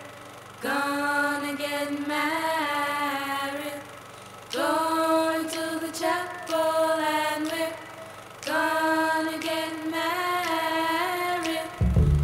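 Soundtrack music: a slow, unaccompanied singing voice holding long notes in three phrases with short breaths between them. A deep bass accompaniment comes in near the end.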